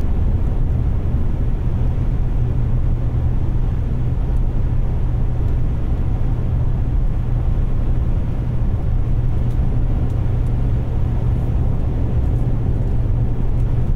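Steady in-cabin noise of a vehicle driving across a dry lake bed: engine and tyre rumble on the hard-packed surface, with a constant low hum.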